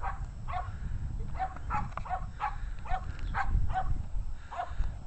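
A string of short, chirp-like animal calls, a few a second at times, over a steady low rumble.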